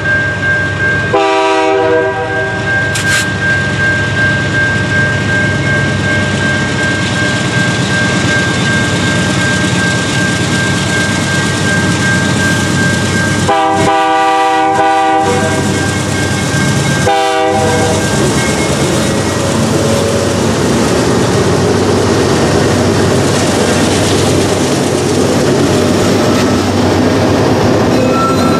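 Two GE C44-9W diesel locomotives pulling a long freight train past, engines working and wheels running on the rails. The horn sounds three times: about a second in, a longer blast about halfway, and a short one a few seconds later. After the locomotives pass, the freight cars rumble and clatter steadily by.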